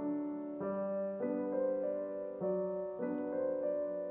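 Background piano music: a gentle piano tune moving to a new note or chord every half second or so.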